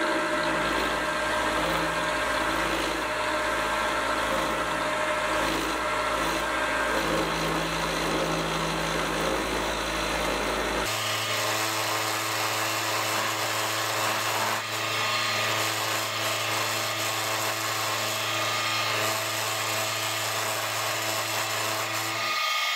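Sieg X2.7L mini milling machine running under load as its end mill cuts mild steel: a steady motor whine over the grinding noise of the cut, changing abruptly about eleven seconds in. The cut went through but the mill wasn't happy with it, which the owner puts down to his feeds and speeds.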